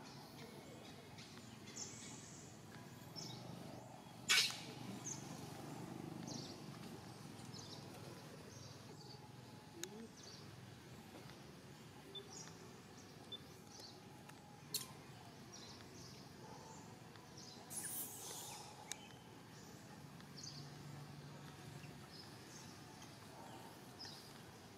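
Faint outdoor ambience: scattered short, high-pitched chirps over a low steady hum, with a sharp click about four seconds in (the loudest sound), another click midway, and a brief rustle about three-quarters of the way through.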